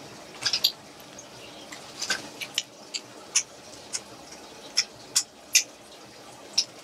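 Plastic wrapping on a small lipstick package being picked at and torn open, giving irregular sharp crackles and snaps.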